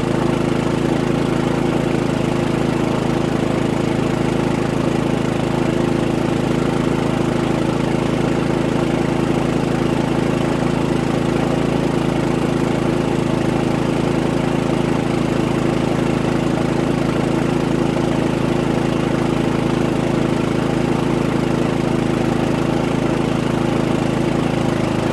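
Harbor Freight Predator 3500 inverter generator running steadily with an even, unchanging drone, under a load of about 1800 watts.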